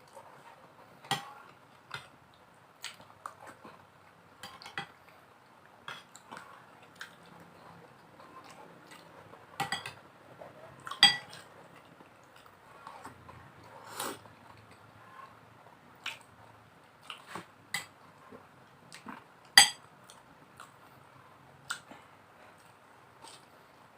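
Cutlery clinking and scraping against a plate during a meal, in scattered irregular clinks, a few of them ringing briefly; the loudest come about 11 and 20 seconds in.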